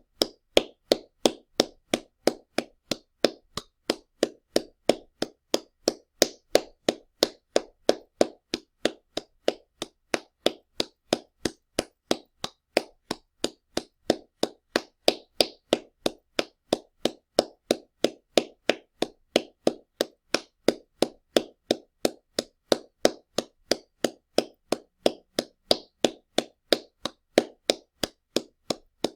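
Loud hand clapping: single claps at a steady, even pace of about two and a half a second, without a break.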